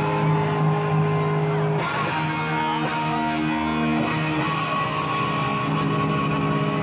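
Distorted electric guitar, a Les Paul-style single-cut, through a stage amp, holding long ringing chords that change about two seconds in and again about four seconds in, with no drums.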